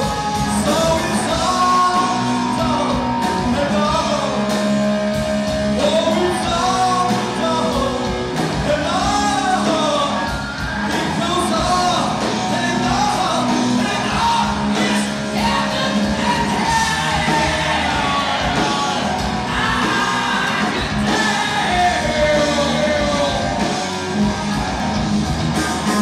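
Live heavy metal band playing loudly: drums, bass guitar and electric guitars, with a lead melody that bends up and down in pitch over a steady low bass line.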